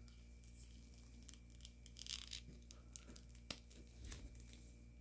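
Faint handling of hard plastic toy parts: a few small clicks and a brief rustle as a plastic armour shin piece is worked onto an action figure's leg, otherwise near silence.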